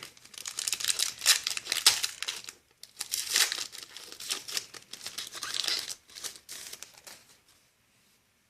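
Foil Yu-Gi-Oh booster pack wrapper crinkling as it is torn open and handled, in irregular bursts that stop about seven seconds in.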